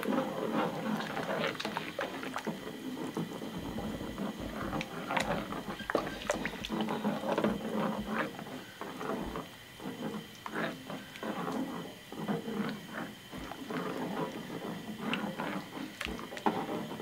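Thick lomi noodle soup being stirred in a wok: wet sloshing and squelching, with irregular taps of the utensil against the pan.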